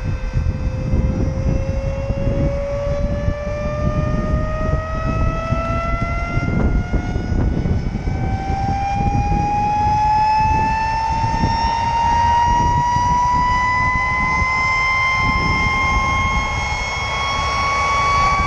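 A jet turbine engine on a jet-powered buggy spooling up: a whine climbs steadily in pitch and does not level off, over a heavy low rush of noise.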